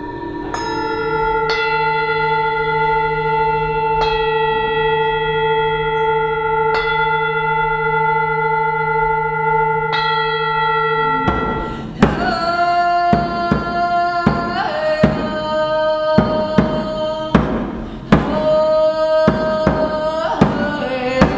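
Sound-healing music: long ringing tones of singing bowls, renewed by a strike every few seconds. About halfway through, a drum starts beating at a quick, uneven pace under held tones that step down in pitch.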